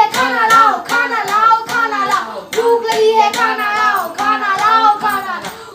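A voice singing a melody with held notes over a steady beat of handclaps, as in an intro jingle.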